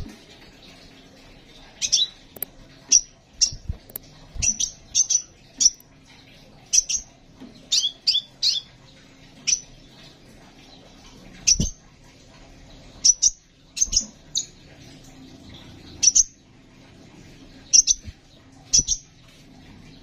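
Crimson sunbird calling: sharp, high chirps, singly and in quick runs of three or four, about two dozen with pauses of a second or two between runs. A few low thumps come among them.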